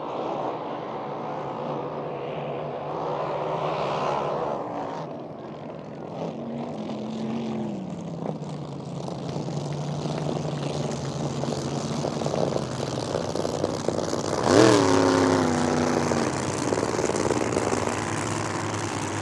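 Racing hydroplane engines running at high speed as the boats pass over the water. Around six seconds in the engine note drops. About 14.5 seconds in a boat goes close by, loudest here, its pitch jumping up and then sliding down as it passes.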